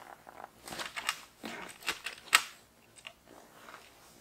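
Several light clicks and taps at irregular intervals, the sharpest a little past halfway.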